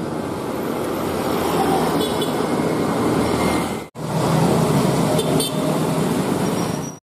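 Street traffic, motorcycles and cars passing in a steady mixed rumble, with a brief cut-out in the sound about four seconds in.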